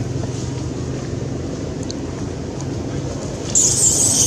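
A macaque's harsh, high-pitched screech, about a second long near the end, over a steady low engine-like rumble.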